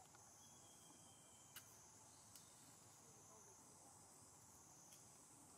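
Near silence: a faint, steady high insect drone, with two faint clicks.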